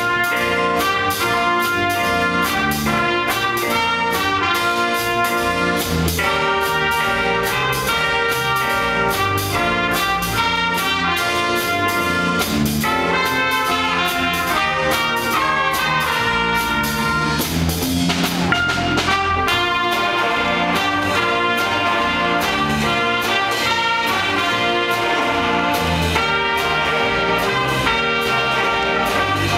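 Jazz big band playing: saxophone, trumpet and trombone sections in ensemble over a drum kit, cymbals keeping a steady beat.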